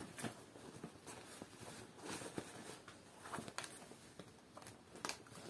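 Faint rustling and scattered light taps from a pair of denim jeans being handled and turned over.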